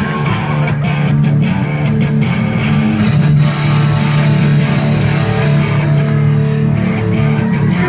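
Live rock band playing an instrumental passage: electric guitar and bass guitar over drums, loud and continuous, with no singing.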